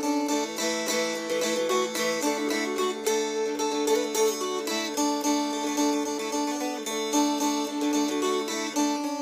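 Mountain dulcimer played solo in an instrumental break: quick, even strumming, with steady drone strings held under a melody that moves from note to note.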